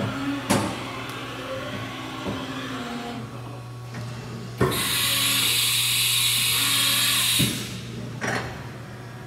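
2000 Haas VF-3 CNC vertical machining center running a program: a steady hum with a whine that starts and stops in short stretches, and sharp clunks about half a second in and twice more later. In the second half a loud hiss lasts about three seconds, starting and ending with a clunk.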